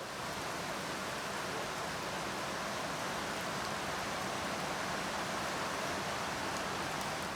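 A steady, even rushing noise that fades in at the start and fades out near the end.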